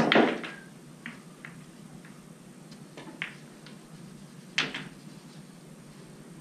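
Pool balls clacking: a hard cue shot right at the start sets balls clattering together for about half a second, followed by a few lighter ball-on-ball clicks and a second sharp clack with a short rattle about four and a half seconds in.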